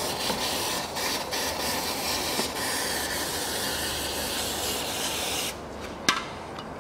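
Aerosol can of carburettor cleaner spraying in a steady hiss, washing spilled oil off an engine's oil filter mount. The spray stops suddenly about five and a half seconds in, and a single click follows.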